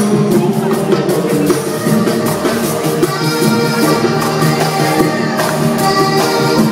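Colombian band playing live: guitars over a steady percussion beat.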